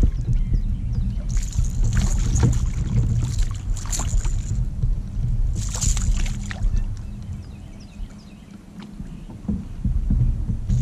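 Fishing reel cranking in bursts as a small bass is played and reeled in, with splashing as the fish is lifted from the water about six seconds in, over a low rumble.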